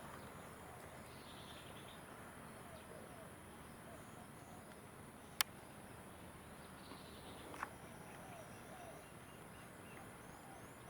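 Faint outdoor ambience with distant birds chirping now and then over a steady hiss. A single sharp click about five and a half seconds in, and a softer one near eight seconds.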